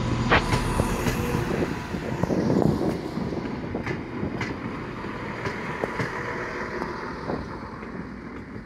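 ScotRail Class 170 Turbostar diesel multiple unit moving past, its underfloor diesel engines humming steadily and its wheels clicking over rail joints now and then. Loudest in the first few seconds, then easing off as the unit draws away.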